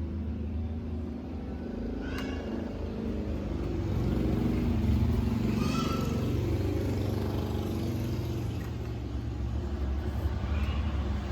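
A motor vehicle engine running, with its hum growing louder from about four seconds in and then easing off.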